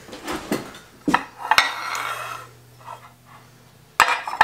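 A spatula knocking and scraping against mixing bowls: a couple of clinks about a second in, some scraping, then a louder clatter near the end.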